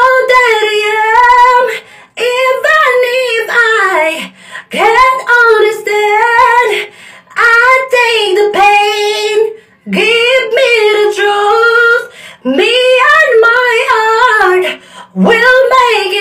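A man singing a cappella in a high register, holding long notes with a wavering vibrato in phrases of one to two seconds broken by short pauses, in a tiled bathroom.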